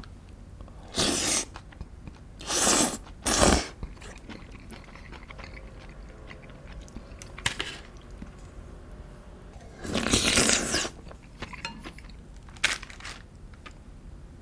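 A person crunching and chewing crisp food close to the microphone, in several loud bites under a second long, the longest crunch about ten seconds in.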